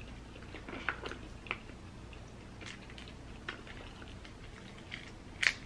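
Close-up eating sounds: chewing with wet smacks, and scattered small crackles as a sauce-covered shellfish tail is pulled apart by hand. One sharp click stands out about five and a half seconds in.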